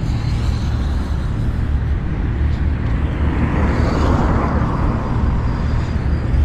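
Busy road traffic with vehicles passing close by, one passing loudest about four seconds in.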